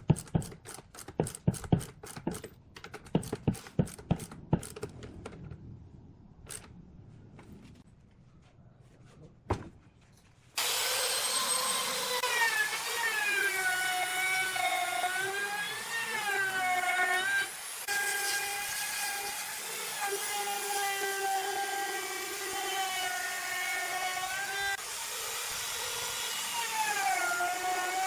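A run of quick, sharp knocks on wood in the first few seconds. About ten seconds in, a woodworking power tool starts abruptly and runs steadily, its pitch dipping and rising as it takes load in the wood.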